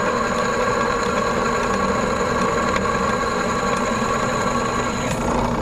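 Drill press running steadily, its freshly sharpened twist bit cutting into square steel tubing.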